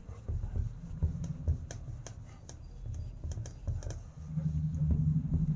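A whiteboard duster wiping marker off a whiteboard: a quick, irregular run of short scuffs and taps over a low hum that gets steadier and louder near the end.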